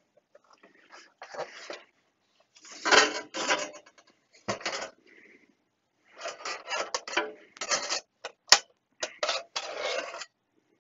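Sheet-metal chassis and shield cover of a Fluke 8810A bench multimeter being handled: irregular scraping and clattering of metal parts as the cover is lifted off the circuit board, with one sharp click about three-quarters through.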